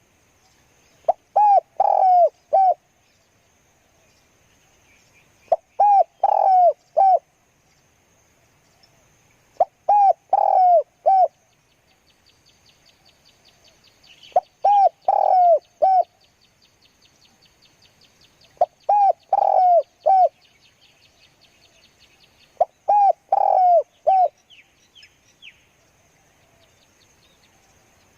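Spotted dove cooing: a short phrase of several coos, repeated six times at intervals of about four seconds. Faint fast ticking runs between the phrases in the middle, and a few short high chirps come near the end.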